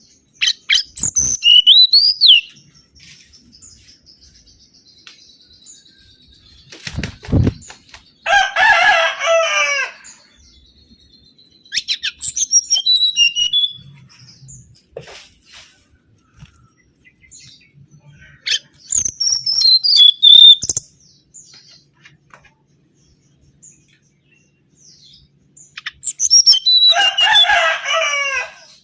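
Mangrove whistler song: five separate bursts of phrases with pauses of several seconds between them, some high sliding whistles and others lower, rapid chattering runs. A low thump comes about seven seconds in.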